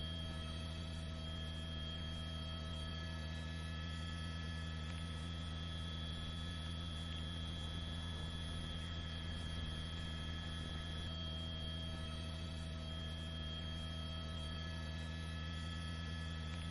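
A steady low hum with several faint, thin high tones above it, unchanging throughout.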